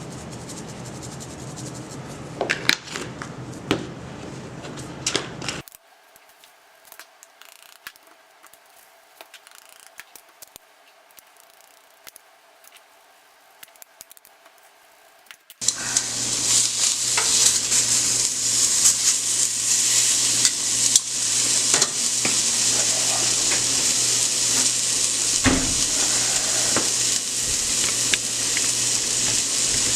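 Clinking of dishes and utensils for the first few seconds. After a quiet stretch, chicken breast pieces start sizzling steadily in a hot cast iron skillet about halfway through, with light ticks over the sizzle.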